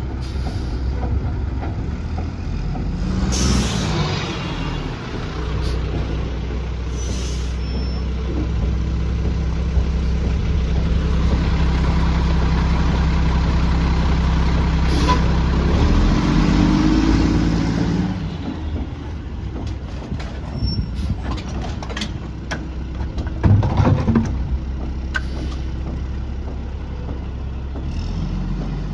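Mack MR garbage truck's diesel engine running steadily, rising in pitch as it revs, then settling. There are sharp hisses of air brakes, the loudest a little past the three-quarter mark.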